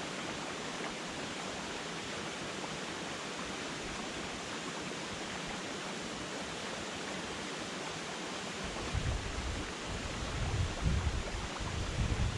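Steady rushing hiss of shallow water running across a gravel forest track. From about nine seconds in, gusts of wind buffet the microphone with low rumbles.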